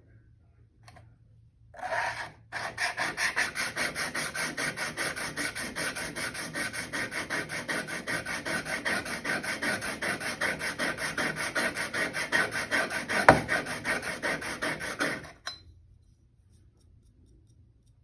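A hand plane's thin steel blade being sharpened freehand on a coarse-grit sharpening stone: quick back-and-forth scraping strokes, about three or four a second, with a single knock near the end of the run. It starts about two seconds in and stops about three seconds before the end.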